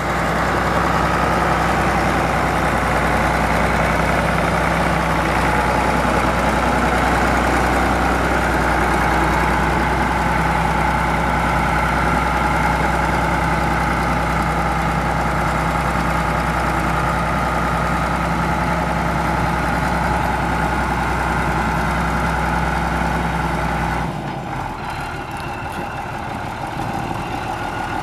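A 1970 Case 970 tractor's engine runs steadily as the tractor drives on gravel. About four-fifths of the way through, the sound suddenly drops and becomes quieter and less even.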